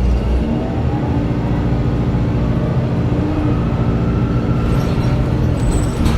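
Drivetrain of a 2009 Orion VII Next Generation hybrid bus, with a Cummins ISB diesel engine and BAE Systems HybriDrive, running under way, heard inside the cabin. It is a steady hum of several tones with a faint whine that climbs in pitch in the first second or so, and a short hiss comes in right at the end.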